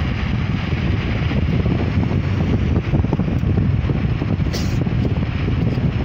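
Moving car's wind and road noise: a steady low rumble with wind buffeting the microphone.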